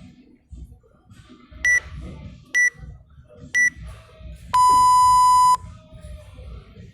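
Electronic interval timer beeping a countdown: three short, high beeps about a second apart, then one long, lower beep, marking the start of the next workout interval.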